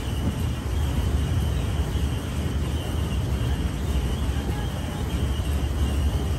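Open-air rail cart running through a tunnel: a steady low rumble of its engine and wheels on the rails, with a steady high-pitched ring above it.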